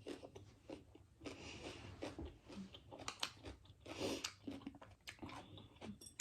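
Close-miked mouth sounds of a person chewing and biting Korean instant noodles, with irregular wet clicks and smacks and a couple of longer hissing sounds.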